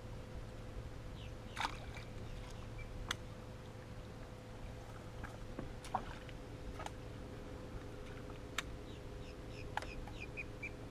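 Quiet ambience on a bass boat's front deck: a steady low hum with a faint steady whine, broken by a few sharp isolated clicks and taps, and a few short high chirps near the end.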